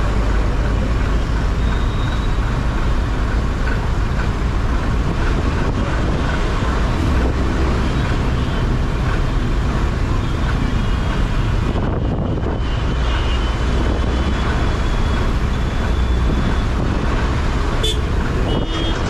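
Motorcycle riding along the road: a steady, loud rumble of engine, wind and road noise, with a faint high tone at times, such as a horn or a beep in traffic.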